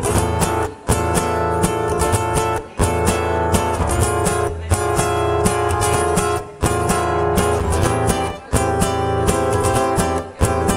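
Guitar strumming chords in an instrumental break of a song, with a short gap about every two seconds.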